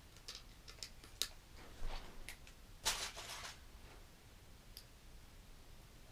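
Small plastic Lego bricks clicking as they are handled and pressed together, a few scattered sharp clicks, with a short louder clatter of pieces about three seconds in.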